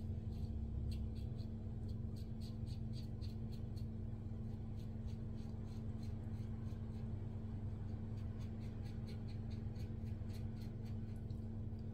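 Double-edge safety razor scraping through lathered stubble in short strokes: crisp rasps several a second, in runs with brief pauses between them. A steady low hum runs underneath.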